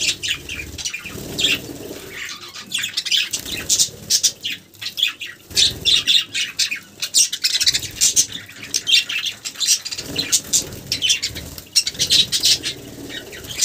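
Budgerigar bathing: bursts of rapid wing-flapping and splashing, with short chirps and squawks.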